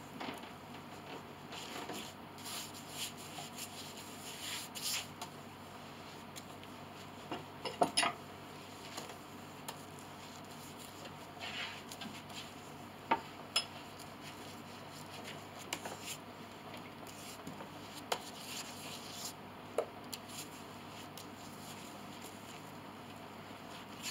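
Scattered light knocks and clicks with a few short rubbing sounds: small wooden pieces being handled, set in place and sanded to fit on a piano pinblock. A couple of louder knocks come about eight and thirteen seconds in.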